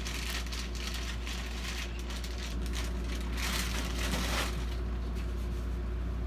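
Thin plastic bag crinkling and rustling as a foam RC airplane fuselage is pulled out of it, loudest a little past halfway, over a steady low hum.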